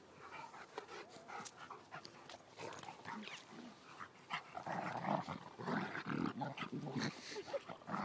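Dogs playing together, making short dog sounds that grow louder and busier in the second half, with scattered sharp clicks throughout.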